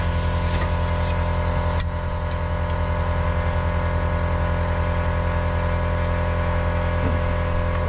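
Compressed air running through an air-powered vacuum brake bleeder as it draws new fluid from the brake bleed nipple: a steady hum with hiss. A single sharp click sounds about two seconds in.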